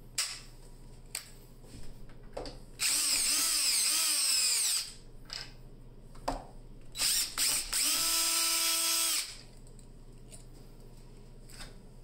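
Cordless drill driving a hole saw through a wooden door to bore the lock hole. It runs twice for about two seconds each: the first time its pitch wavers as it cuts, the second time it is a steady whine. A few knocks come before and between the runs.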